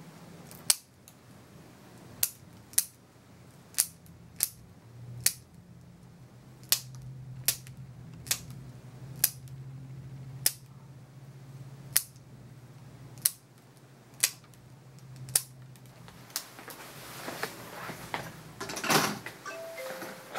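Plier-style dog nail clippers snapping through a Maltipoo's long toenails: about fifteen sharp clicks, roughly one a second, stopping about three-quarters of the way through. A brief rustling noise follows near the end.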